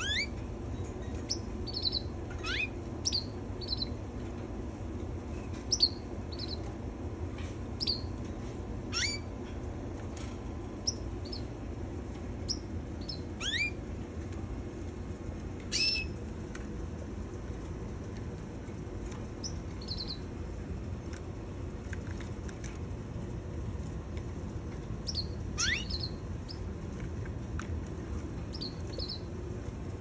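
Domestic canaries giving scattered short chirps and quick upward-sweeping call notes, with one louder call about halfway through, rather than continuous song. A steady low hum runs underneath.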